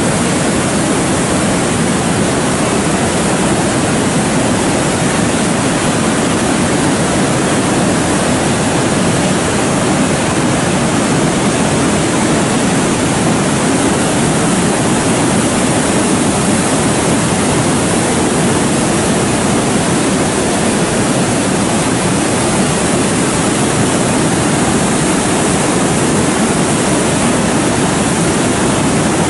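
Muddy floodwater from an overflowing lake rushing over rocks in a foaming torrent: a steady, loud roar of water.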